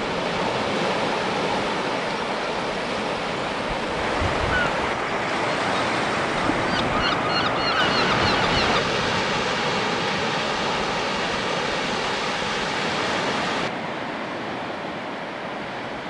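Sea washing steadily on a rocky, seaweed-covered shore, with some wind. About halfway through, a quick run of short, high bird calls sounds over the water. About three-quarters of the way in, the wash turns quieter and duller.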